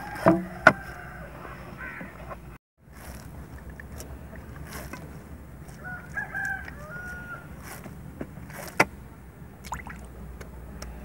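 Dough being kneaded by hand in an aluminium basin, with a few sharp knocks, one near the start, one just after and one about nine seconds in. Short bird calls sound in the background at the start and again about six seconds in.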